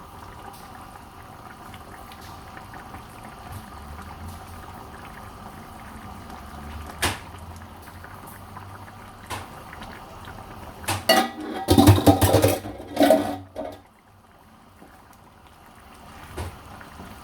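Chicken curry simmering in a pot, with a sharp knock about seven seconds in. Near the end come a couple of seconds of loud knocking and scraping in the pot, then the sound drops much quieter.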